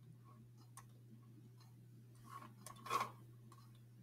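Faint ticks and light taps of a stylus writing on a pen tablet, with a slightly louder tap or two about three seconds in, over a steady low hum.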